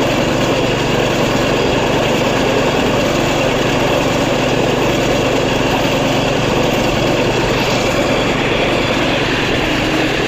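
Steady running of a moving vehicle: an engine droning evenly under a rushing haze of travel noise, with no change in pace.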